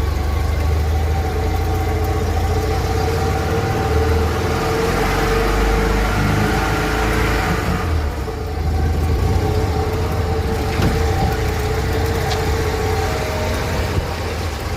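Steyr Puch Haflinger's air-cooled flat-twin engine running as the vehicle is driven. Its note builds for a few seconds and then drops off abruptly about eight seconds in.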